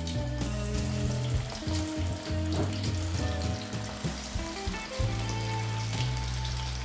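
Masala-and-cornflour-coated squid pieces dropped by hand into hot oil, sizzling and bubbling with a dense crackle as they deep-fry.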